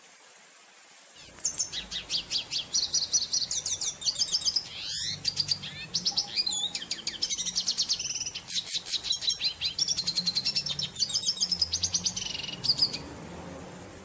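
Red siskin (Venezuelan siskin) singing a long, fast twittering song of rapidly repeated high notes and trills, starting about a second in and stopping about a second before the end.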